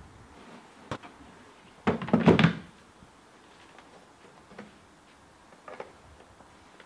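Hard plastic grass catcher knocking and clattering as it is hooked onto the back of a Victa rotary lawn mower, loudest for about half a second around two seconds in. A few faint clicks follow as the mower's engine is handled.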